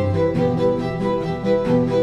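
Background music played on bowed strings: a violin melody over cello notes.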